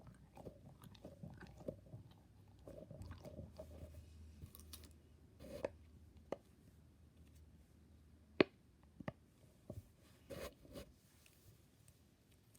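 Fidget toys being handled: irregular soft clicks, pops and rustles, with one sharper click a little past the middle.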